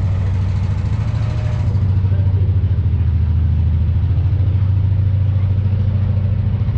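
Narrowboat's diesel engine running steadily at cruising speed, a low, even throb that grows a little louder about two seconds in.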